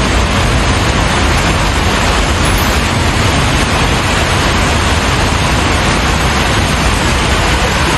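Heavy rain pouring down in a loud, steady hiss.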